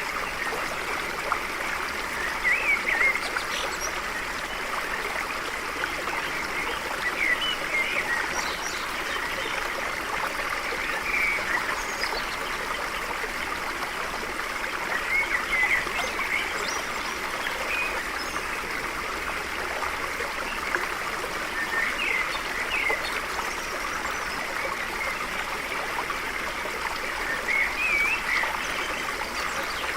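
A stream flowing steadily over stones with an even rush, with short chirping bird calls breaking in every four or five seconds.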